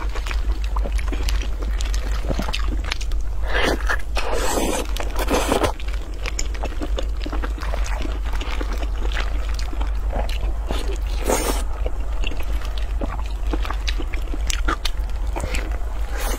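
Close-up eating sounds of braised fatty pork belly: wet chewing, biting and lip smacks, with plastic-gloved hands squishing and pulling at the sauce-soaked meat. Louder, longer wet noises come about four to six seconds in and again around eleven seconds, over a steady low hum.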